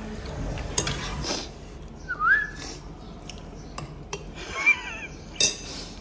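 Cutlery clicking and clinking against plates and bowls, a handful of sharp strikes. A short rising whistle-like tone comes about two seconds in, and a second brief warbling tone a little before the end.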